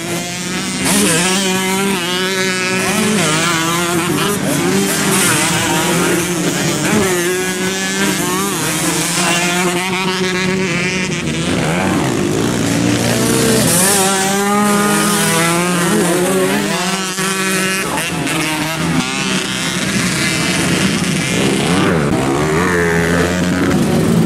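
Dirt bike engines revving hard and backing off in turn as the bikes race up and over the jump, their pitch rising and falling repeatedly over a steady lower engine drone.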